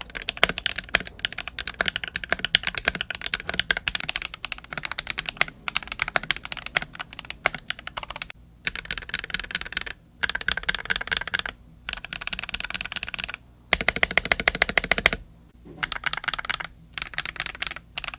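Fast typing on a mechanical keyboard fitted with Akko CS Matcha Green linear switches: a rapid, continuous stream of key clacks that breaks into bursts with short pauses in the second half.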